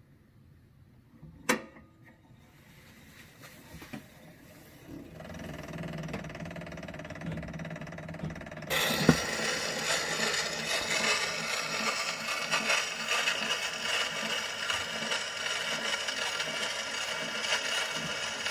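Edison Diamond Disc phonograph being set going: a sharp click about a second and a half in, a low hum building, then about nine seconds in a thump as the reproducer meets the disc and a steady hiss and crackle of surface noise from the damaged record begins.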